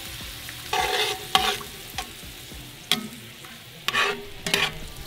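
Metal tongs stirring heavy cream sauce in a cast-iron skillet, a swishing stroke about every second, some with a sharp click of the tongs against the pan. Under it runs a steady low sizzle from the hot pan.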